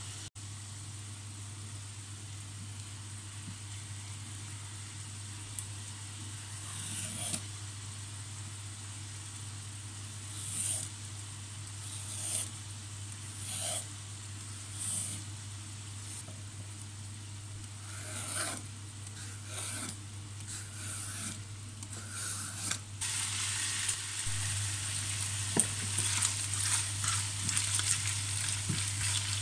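Vegetable peeler scraping strips off a raw carrot on a wooden board, one stroke every second or two, over a steady hiss. In the last few seconds, a knife cutting through a cucumber on the board, louder and more frequent.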